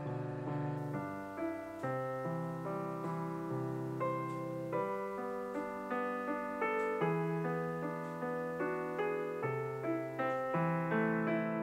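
Background music: a gentle piano tune of steady, evenly paced notes over a held bass.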